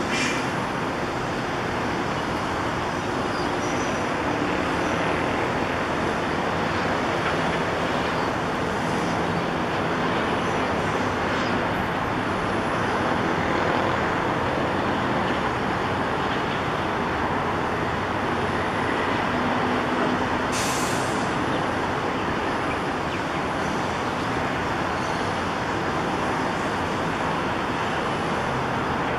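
Kobelco SK200 crawler excavator's diesel engine running steadily as the machine works, with a short high hiss about two-thirds of the way through.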